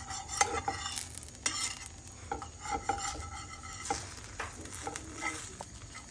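Small pancakes sizzling in oil in a frying pan, with a utensil scraping and tapping against the pan in short, irregular strokes.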